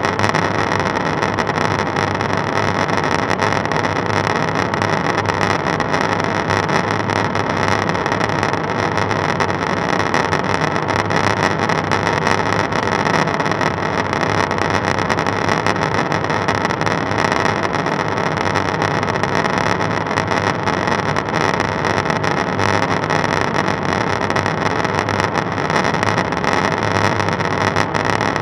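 Steady in-flight cabin noise of a KC-135 Stratotanker heard from the boom operator's station: a loud, unchanging rush of airflow and engine noise with no breaks.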